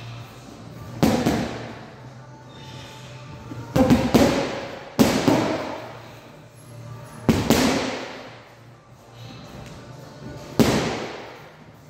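Gloved punches striking a hanging Bushido heavy punching bag, about six hits at uneven intervals, two of them in quick succession about four seconds in, each echoing briefly in the room.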